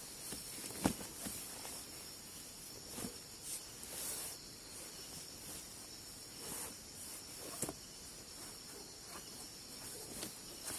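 Night insects, crickets among them, chirring steadily in a faint high buzz, with a few soft rustles and knocks scattered through.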